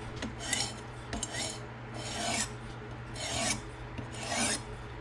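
Coarse 160-grit resin-bonded diamond stone rasping along the edge of a VG-10 Damascus steel knife held in a TSProf Pioneer fixed-angle sharpener. There are about five strokes, one a second: forward passes to remove the burr.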